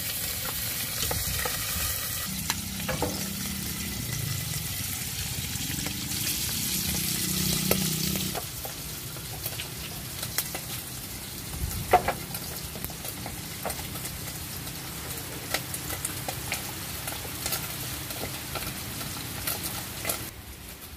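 Small fish frying in hot oil in a metal pot, a steady sizzle that is loudest for the first eight seconds or so and then settles lower. Chopsticks stirring the fish add scattered clicks and scrapes, with one sharp knock against the pot about halfway through.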